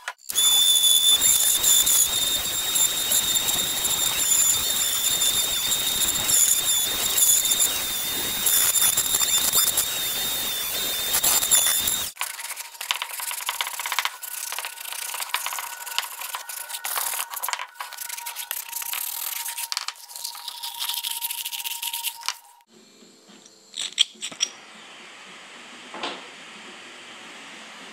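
A shop power tool runs with a steady high whine for about twelve seconds and cuts off sharply. A second machine with a lower hum then runs for about ten seconds while the redwood is worked. Near the end a quieter steady hiss, with a couple of sharp clicks, comes from a torch flame.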